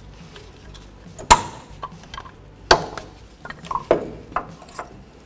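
Irregular metal knocks and clanks, four sharp ones among smaller clicks, as a stuck brake pad is worked free of a brake caliper with hand tools.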